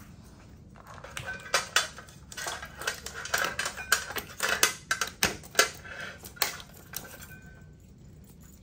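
Heater-cooler water-line connectors and circuit tubing being handled: a run of irregular light clicks and clatters of hard plastic and metal fittings, starting about a second in and dying away near the end.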